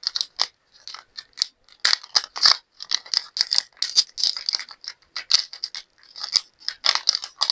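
Irregular rattling and clicking of a small jar of silver chrome acrylic powder being handled and shaken, several short knocks a second.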